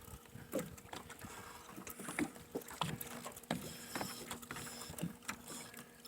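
Irregular knocks and taps on a small boat, heard over a faint steady hum.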